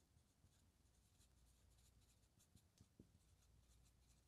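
Faint scratching of a dry-erase marker writing on a whiteboard: a string of short, light strokes, with a soft tap about three seconds in.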